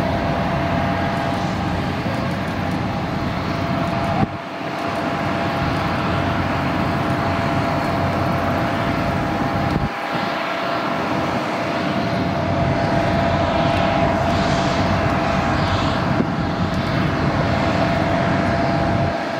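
Airbus A330-900neo's Rolls-Royce Trent 7000 turbofans at takeoff thrust as the airliner climbs away: a steady jet noise with a high whine in it, dipping briefly about four seconds in and again near the middle.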